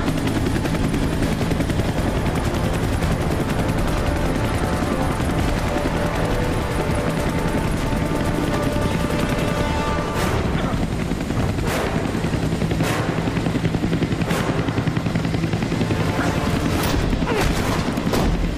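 Helicopter rotor noise under a film score. From about ten seconds in, several sharp hits land irregularly over the rotor and music, the kind a gunfire or fight scene is cut with.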